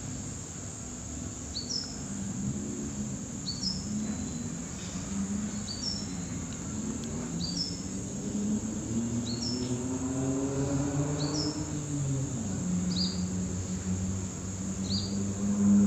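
Outdoor insect chorus: a steady high-pitched insect drone, with a short two-note chirp repeating about once a second. Underneath, a low hum rises in pitch around ten seconds in and drops back about two seconds later.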